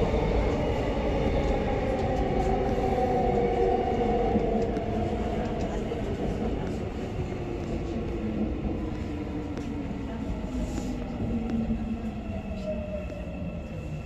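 Sinbundang Line subway train running, its traction motor whine falling steadily in pitch as the train slows, with rumble fading, as it brakes to stop at a station.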